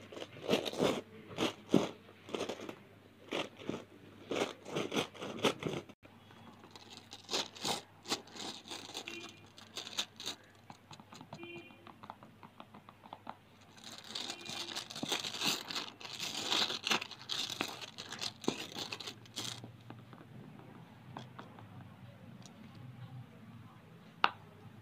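Long acrylic nails tapping and scratching a soft silicone animal-shaped zip pouch, in quick crackly clicks. A denser, scratchier stretch comes past the middle, then it goes quieter.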